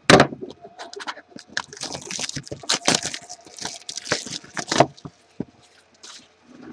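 Plastic shrink-wrap being torn and crinkled off a sealed Panini trading-card box: a sharp crack at the start, then irregular crackling and rustling that stops about five seconds in.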